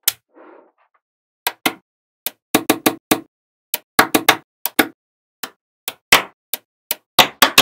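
Small magnetic balls snapping onto one another: an irregular run of sharp, hard clicks, some coming in quick pairs and threes.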